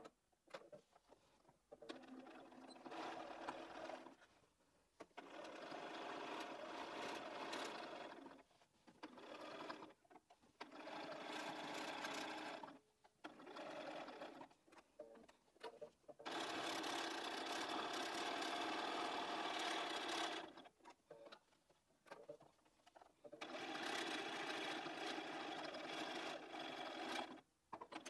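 Bernina 570 QE sewing machine stitching binding onto a quilted cushion edge, running in about six short bursts with brief stops between them as the work is guided; the longest run lasts about four seconds.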